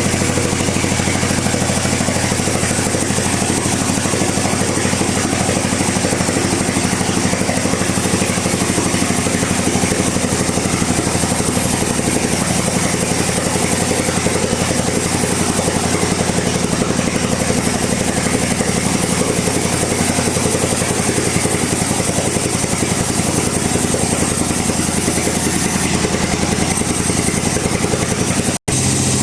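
Bandsaw running steadily while sawing through a log, a constant machine hum under the noise of the cut. It breaks off for an instant near the end.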